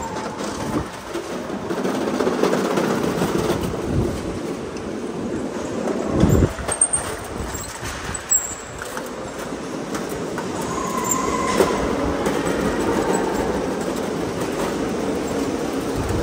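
Go-kart driving on the track, heard from the seat: a steady rattling rumble of the kart and its tyres on the floor, with a couple of bumps about six seconds in and a few brief tyre squeals.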